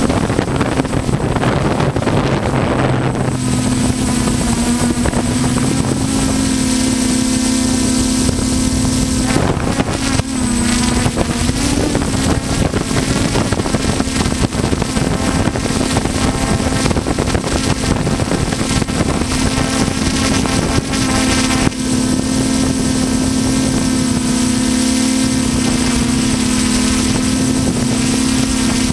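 Multirotor drone's motors and propellers running with a steady hum, heard close from the drone's own camera. Rushing wind noise on the microphone in the first three seconds, and the pitch wavers briefly about ten seconds in.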